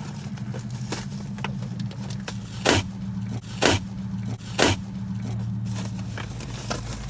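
A cardboard package being opened by hand: three loud, sharp rips or scrapes about a second apart, with small clicks and rustles, over a steady low hum.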